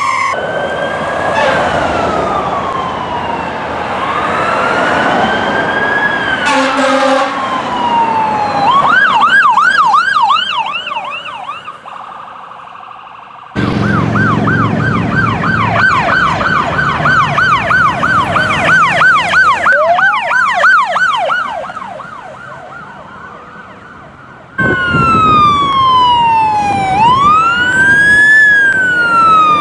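Electronic sirens of emergency vehicles on calls, switching between a slow rising-and-falling wail and a fast yelp. First a fire engine's siren wails and then yelps as it pulls away and fades, with a short horn blast about a quarter of the way in; then a police SUV's siren yelps and then wails; near the end several fire engine sirens wail at once, overlapping.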